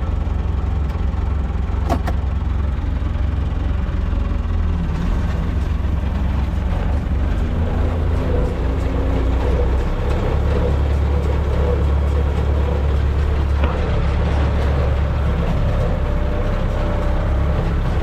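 Massey Ferguson 575 tractor's four-cylinder diesel engine running steadily under load while baling hay, with one sharp click about two seconds in.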